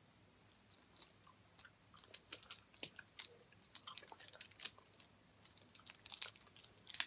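Faint, irregular clicking of a Rubik's Snake's plastic wedge segments being twisted and turned by hand, several small clicks a second, more of them from about two seconds in.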